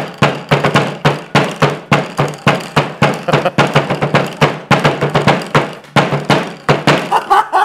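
Two hammers repeatedly striking balls of crumpled aluminium foil on a tabletop, about four or five sharp knocks a second in an uneven rhythm, pounding the foil into smooth spheres.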